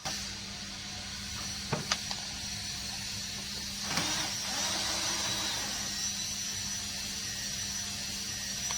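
A small electric motor running steadily with a high whine, starting suddenly at the outset, with a few sharp clicks about two seconds in.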